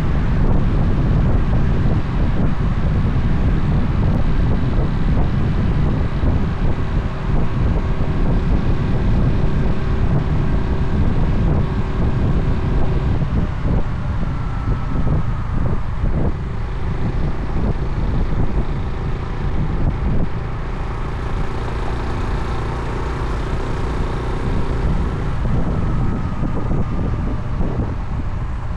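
Wind buffeting a motorcycle-mounted microphone at road speed: a heavy, steady low rumble, with the motorcycle's engine and tyre noise running beneath it.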